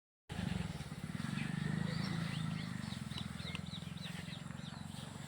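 Small birds chirping in a run of short, high, falling notes over a steady low rumble.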